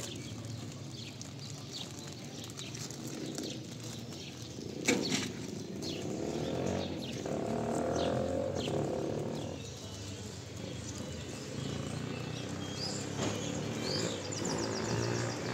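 Small birds chirping repeatedly over street background noise, with a sharp knock about five seconds in and a low engine hum that swells and fades in the middle, like a vehicle passing.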